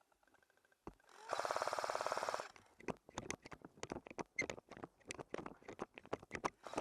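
A burst of fully automatic airsoft gunfire, about a second long and very rapid, starts just over a second in. It is followed by quick, irregular footsteps crunching through leaves and brush as someone moves forward.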